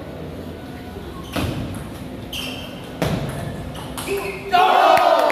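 Table tennis rally: the celluloid ball clicks sharply off the paddles and table a few times over crowd chatter in a large hall. About four and a half seconds in, loud shouting breaks out as the point is won.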